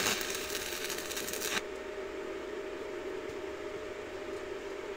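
Stick (MMA) welding arc crackling for about a second and a half as a tack weld is struck on steel, then cutting off sharply. A steady low hum with a faint steady tone continues underneath.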